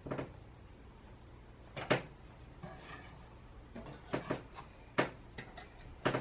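Baked bread rolls being lifted off a metal baking tray with a knife and set down on a wire cooling rack: a series of light knocks, clicks and short scrapes, the sharpest about two seconds in and again about five seconds in.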